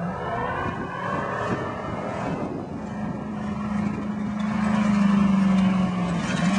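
A vehicle's engine running under load while driving off-road, growing louder and rising slightly in pitch, with a brief dip near the end before it picks up again.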